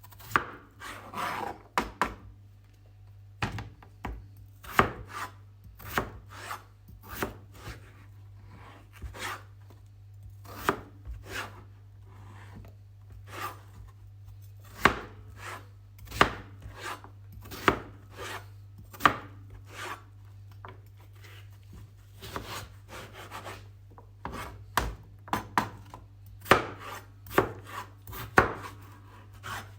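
Kitchen knife chopping vegetables on a cutting board: sharp, irregular knocks, about one or two a second, with a steady low hum underneath.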